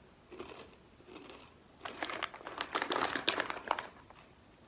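Plastic chip bag crinkling as it is handled and turned over, a dense crackle for about two seconds starting about two seconds in.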